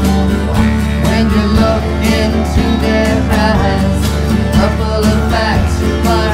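Country-style band music led by guitar, playing an instrumental passage with no words.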